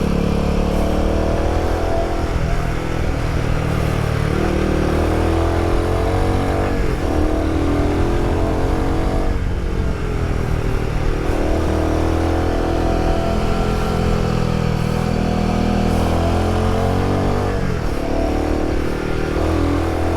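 Royal Enfield Himalayan 450's single-cylinder engine running through a prototype aftermarket exhaust whose mid pipe is routed in a U-turn to damp the sound, under way on the road. The exhaust note rises and falls several times as the revs climb and drop between throttle changes.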